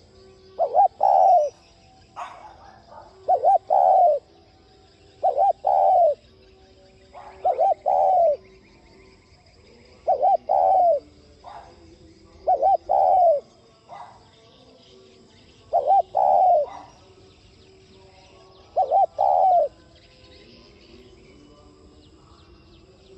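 Spotted dove cooing eight times, about every two to three seconds. Each call is two short notes followed by a longer coo that rises and falls. The calls stop a few seconds before the end.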